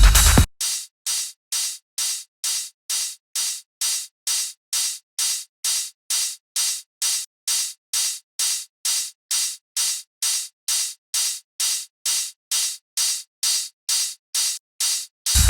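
A soloed percussion part from a techno track: a short, bright hiss-like hit repeating evenly, about two and a half times a second, with no bass or kick under it. Its lower part thins out about two thirds of the way through.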